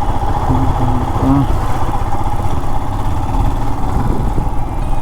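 Royal Enfield Himalayan BS6's 411 cc single-cylinder engine running steadily under the rider, with three brief tones about half a second in.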